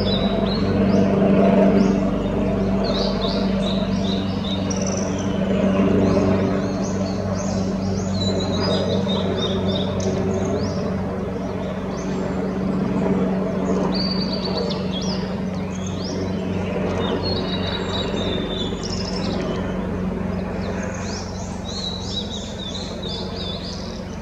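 Male blue-and-white flycatcher singing: repeated short phrases of high whistled notes, a few seconds apart, over a steady low hum.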